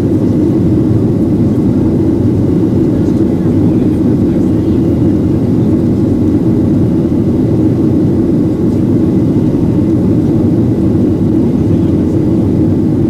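Steady low roar of a Boeing 737-800's CFM56 jet engines and rushing air, heard inside the passenger cabin during the climb after take-off.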